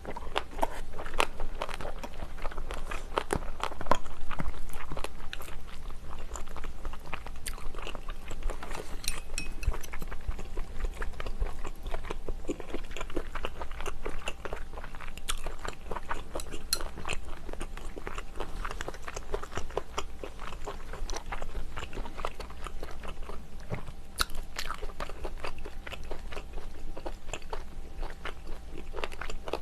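Close-miked chewing and mouth sounds of a person eating seafood stew with rice: a steady run of small wet clicks and smacks, with crunchy bites mixed in.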